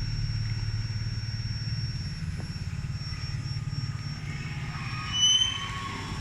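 Diesel-electric freight locomotive running with a steady low rumble. About five seconds in there is a brief high-pitched squeal.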